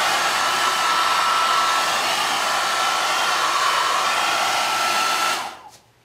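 Handheld hair dryer blowing steadily with a faint whine, then switched off about five and a half seconds in, its noise dying away within half a second.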